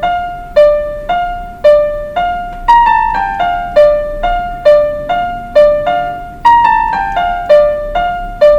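Electronic keyboard on its piano voice playing a simple single-note melody, about two to three notes a second. The notes fall in short descending phrases that repeat.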